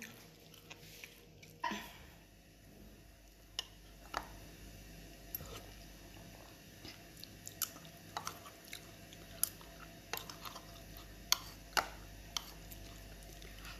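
A person chewing boiled corn on the cob close to the microphone: quiet mouth and chewing sounds with about a dozen short, sharp clicks scattered unevenly through it.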